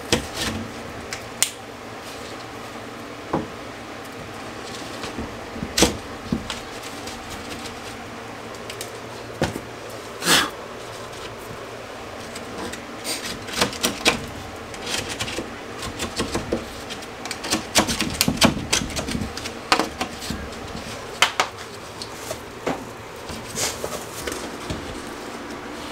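Utility knife scraping and trimming the cut edge of a drywall sheet, with irregular clicks, scrapes and knocks as the sheet is handled and fitted, over a steady low hum.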